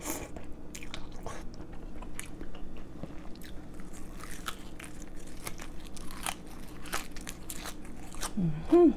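Close-up eating sounds: a slurp of noodles at the start, then chewing and crunching of fresh herb leaves, with wet mouth clicks and lip smacks throughout. A brief hummed voice sound just before the end.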